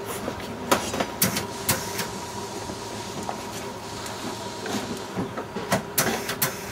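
Irregular sharp clicks and knocks, a dozen or so spread unevenly, from hand work with a hose fitting and parts at a race car's open door, over a faint steady tone.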